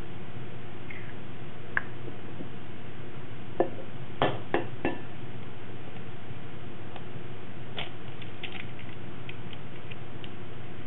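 Eggs being cracked against a glass mixing bowl and dropped in: a few sharp taps, the loudest a cluster of four about four seconds in, with fainter clicks of shell near the end, over a steady low hum.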